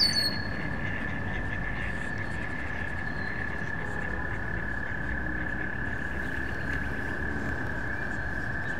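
A chorus of frogs trilling, one unbroken high trill held steady on a single pitch, with a short high bird call at the very start and again at the end.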